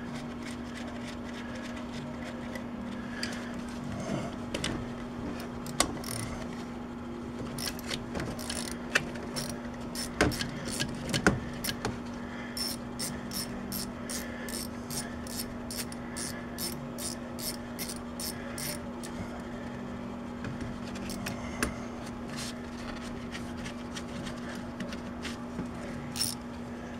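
Quarter-inch drive ratchet with an 8 mm socket clicking as valve cover bolts on a Chevy 5.3 V8 are backed out. There are scattered clinks of the tool on metal, and a run of even ratchet clicks, about three a second, in the middle. A steady low hum runs underneath.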